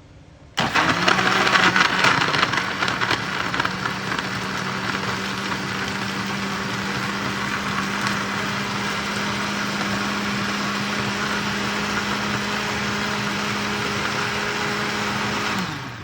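Electric blender grinding galangal, ginger, turmeric, garlic and squid innards into a paste: it switches on about half a second in, runs loudest and roughest for the first couple of seconds as the pieces break up, then settles into a steady motor hum, and switches off near the end with the motor winding down.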